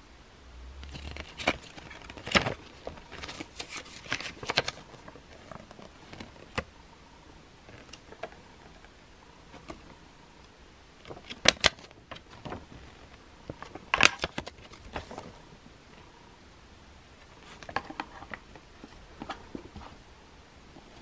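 A folded paper leaflet being handled and unfolded: scattered bursts of paper rustling and crinkling, with a handful of sharp snaps and clicks between quieter pauses.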